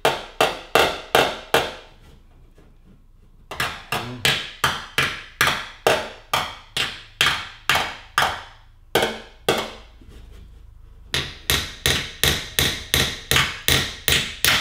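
Polished body hammer striking a car fender's body line on a dolly held against the back of the panel: a steady run of sharp, high-pitched ringing pings about three a second, with short pauses about two and ten seconds in. The sharp ping is the sign of the hammer landing right on the dolly, ironing out the panel.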